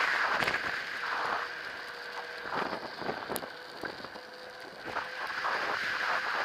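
E-bike tyres running over a snowy road: an uneven crackling hiss with scattered clicks, and a faint steady whine underneath.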